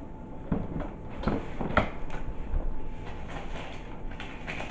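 A sneaker box and its packing being handled: scattered rustles and light knocks as the box is opened to get at the shoe.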